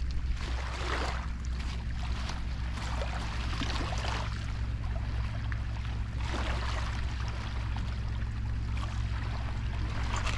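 Small waves lapping on a pebble shore, washing in and drawing back every two or three seconds over a steady low hum.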